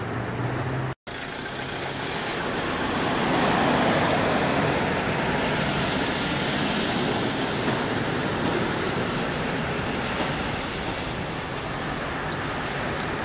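Cars and vans driving slowly past onto a car ferry's loading ramp: engines running and tyres rolling, a steady traffic noise that grows louder a few seconds in. There is a brief break about a second in.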